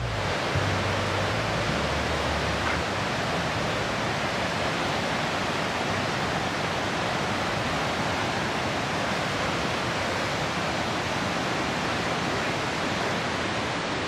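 Gullfoss waterfall: a steady, unbroken rush of heavy falling and churning water.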